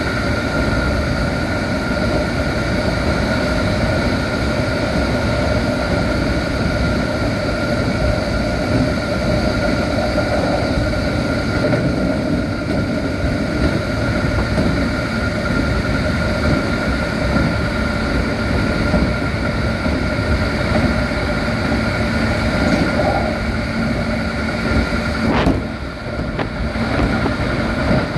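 Running noise of a Keikyu 1500 series chopper-controlled electric train heard from inside the car at about 95–100 km/h: a steady rumble of wheels on rail under a steady electrical whine. About 25 seconds in a sharp click is heard, and the noise briefly drops.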